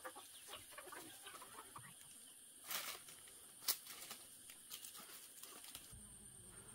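Chickens clucking faintly, with two short sharp knocks about three and four seconds in, over a steady high hiss.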